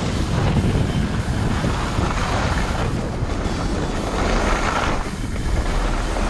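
Wind buffeting the microphone: a loud, steady rushing noise, heaviest in the low rumble.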